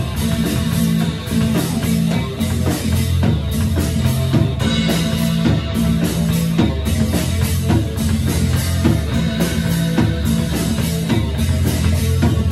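Rock band playing live: electric guitars over a steady beat on a Pearl drum kit, loud and dense, with a heavy low end.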